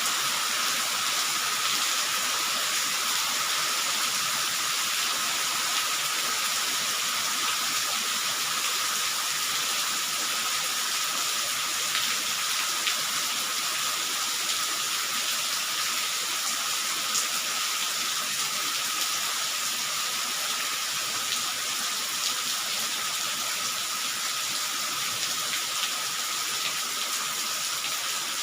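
Steady heavy rain falling, an even hiss with a few faint ticks of drops and a faint steady high tone under it.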